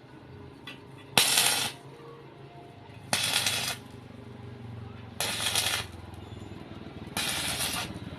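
Arc welding crackle in four short bursts, each about half a second long and about two seconds apart, over a faint low steady hum.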